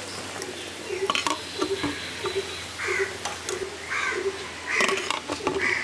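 Water boiling in a metal kadai, with a wire spider skimmer clinking and scraping against the pan while boiled green mangoes are lifted out. Several sharp clinks come about a second in and again near the end.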